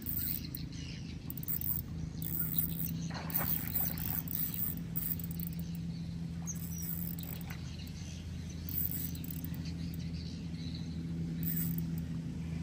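Angler playing a hooked fish on a spinning rod: intermittent short high-pitched reel and line noise over a steady low motor hum.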